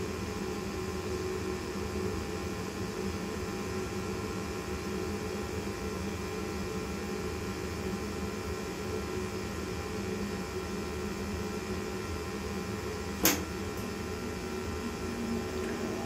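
A 90% high-efficiency gas furnace running just after it has fired, a steady mechanical hum with several steady tones. One sharp click about 13 seconds in.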